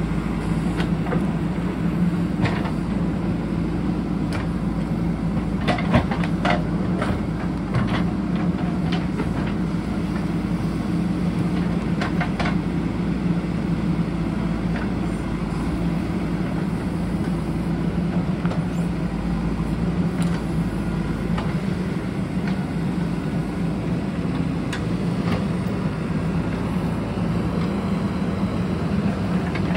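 JCB backhoe loader's diesel engine running steadily under working load, with scattered knocks and clanks, a cluster of them about six to eight seconds in.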